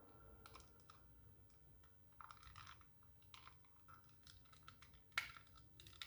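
Faint, scattered clicks and light rattles of a wired optical mouse's plastic shell being handled and opened, with a sharper click about five seconds in.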